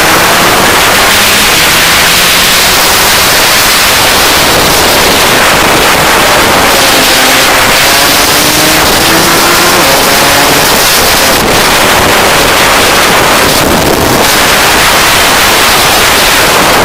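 Rotax DD2 kart's 125 cc two-stroke engine running on track, its pitch rising and falling as it speeds up and slows, nearly buried under heavy wind noise on the microphone.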